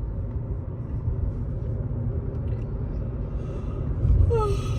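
Steady low rumble of a car being driven, heard from inside the cabin, with a brief falling tone about four seconds in.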